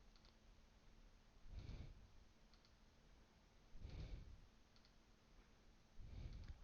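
Near silence with a few faint computer mouse clicks, as connectors are removed one at a time, and three soft, short puffs of low noise.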